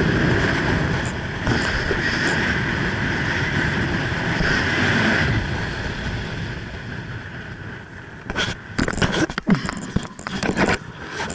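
Wind rushing over a helmet-mounted microphone during a parachute descent, slowly easing as the canopy slows for landing. From about eight seconds in, irregular knocks and rustles as the jumper touches down and runs out the landing on grass.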